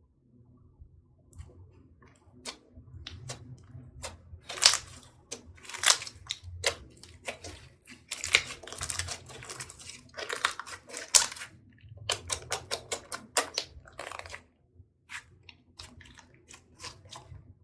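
Slime being squished and kneaded by hand, giving a run of sticky clicks, pops and crackling squelches that come in clusters and thin out to scattered clicks near the end.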